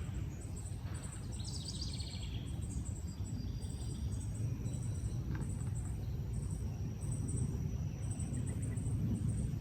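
Outdoor ambience: a steady low rumble under insects trilling in high, pulsing bursts, with a short bird call about one and a half seconds in.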